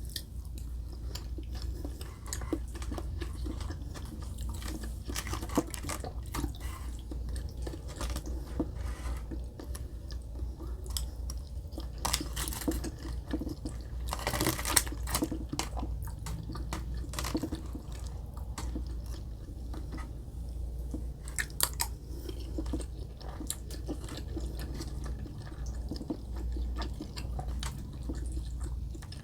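Close-miked chewing and biting while eating chicken katsu, rice and macaroni salad: wet mouth smacks and crunches of breaded cutlet, with a louder burst of noise about halfway through, over a steady low hum.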